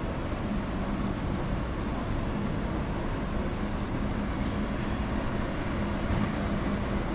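Steady city street ambience: a continuous rumble of traffic with a low, even hum and no distinct events.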